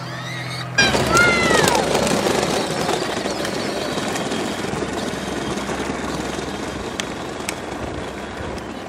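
A child's short high cry, then the steady rough running noise of a 12-volt Power Wheels Stinger XS ride-on driving along an asphalt road.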